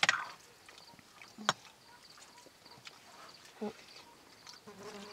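Steel plates and a spoon in a metal wok clinking while people eat by hand, two sharp clinks, one right at the start and one about a second and a half in, over quiet room sound with a short low sound in between.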